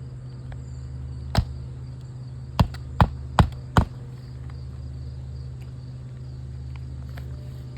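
Hammer striking a roofing nail to fasten a shingle to the roof decking: a single blow, then four quick blows about half a second apart.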